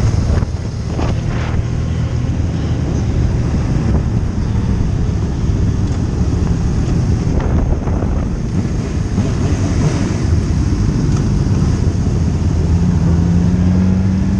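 Motorcycle riding at speed: a steady low engine note buried in heavy wind noise on the camera microphone. A second, higher engine note comes in near the end, rising slightly.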